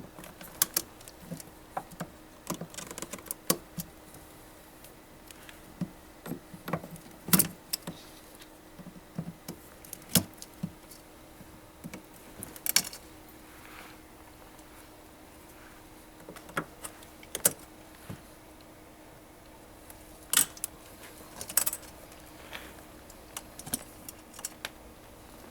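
Wire cutters snipping plastic zip ties and the cable harnesses being handled: irregular sharp clicks and snaps, some in quick clusters, over a faint steady hum.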